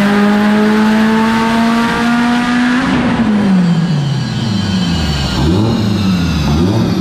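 Turbocharged 2011 Subaru STI flat-four engine in a full-throttle dyno pull, its pitch climbing steadily toward redline, then lifting off about three seconds in. The revs fall away and then dip and rise several times as it winds down.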